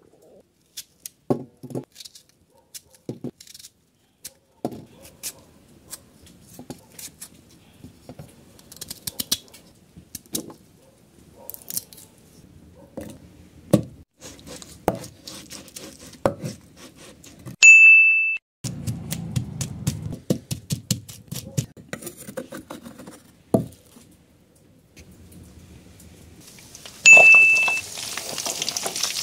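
Pestle pounding and grinding in a mortar: a long run of uneven knocks and scrapes. A short bright tone sounds twice, about halfway through and near the end. Near the end, sliced onions start sizzling in hot oil in a kadai.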